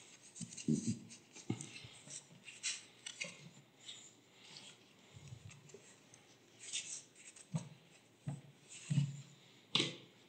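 Handling noise from a folding laptop table: scattered light clicks, knocks and rubbing as its fold-out legs are worked by hand and the top is touched, with a sharper knock near the end.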